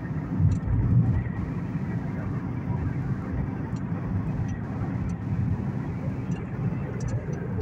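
Road noise heard inside a moving car's cabin: a steady low rumble of engine and tyres, with a couple of louder bumps about half a second and one second in.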